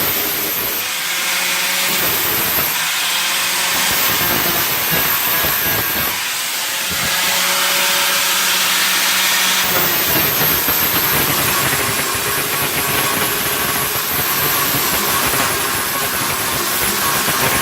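A power tool running with a loud, steady hiss, its motor hum coming and going in spells.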